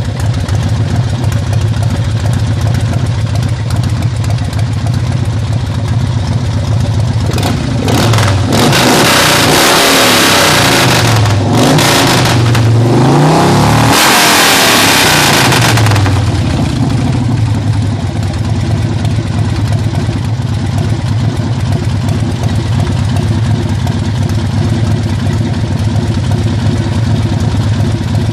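Ultima 113 air-cooled V-twin motorcycle engine idling. About eight seconds in it is blipped through several revs over roughly eight seconds, then settles back to idle.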